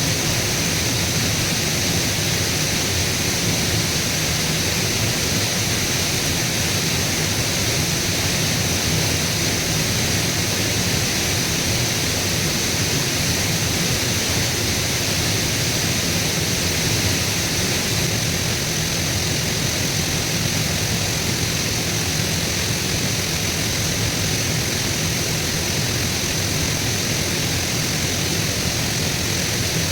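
A steady, even rushing noise that does not change, with a strong hiss in the upper range.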